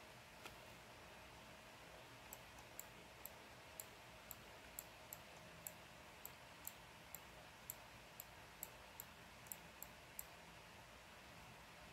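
Light, sharp computer mouse clicks, about two a second, starting about two seconds in and stopping near the end, over faint room tone.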